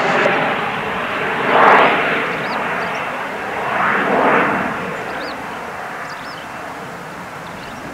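Embraer Praetor 600's twin Honeywell HTF7500E turbofans rushing as the business jet climbs away after takeoff, swelling twice and then fading steadily as it recedes.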